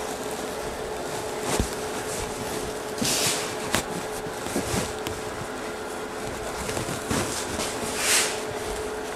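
Upholstery fabric rustling and swishing twice as it is pulled and tucked around a wooden chair arm, with a few light clicks, over a steady workshop hum.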